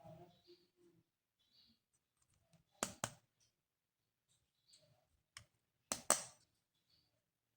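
Sharp clicks from plastic toy parts being handled: a pair about three seconds in, a single click, then a louder pair about six seconds in, with faint rustling between.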